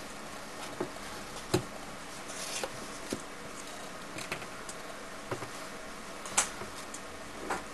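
Handling noise from a hardback springback binder and a stack of paper on a wooden table: scattered taps and knocks of the binder against the tabletop, the loudest about 1.5 s and 6.4 s in, with light paper rustling over a steady background hiss.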